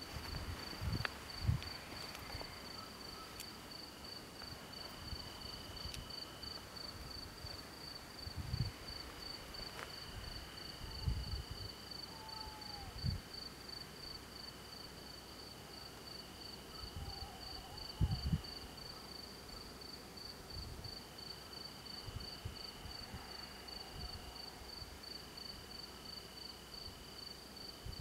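Crickets chirping steadily at night, about two high chirps a second. A second insect trills in long spells. A few low thumps stand out above the chirping.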